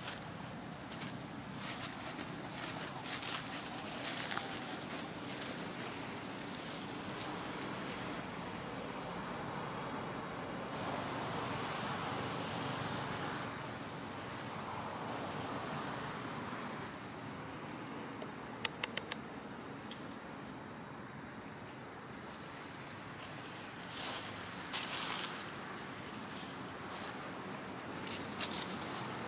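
Steady high-pitched drone of insects in the forest, one unbroken tone. A quick run of three or four clicks comes about two-thirds of the way through.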